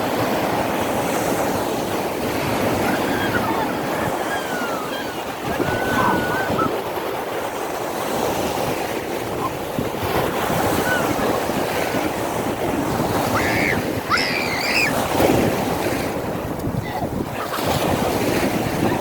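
Sea surf washing steadily onto a sandy beach, with wind buffeting the microphone. A few brief high-pitched calls cut through now and then.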